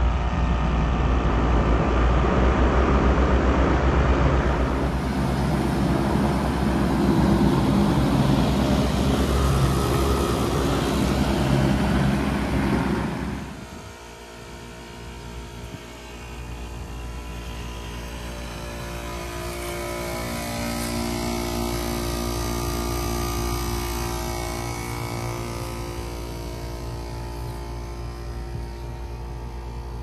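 Wall-mounted packaged heat pump running in heat mode after a defrost, close up: a steady rush of fan air over a low compressor hum. About 13 seconds in the sound cuts to a wall unit heard from farther off, quieter, a steady hum with several held tones.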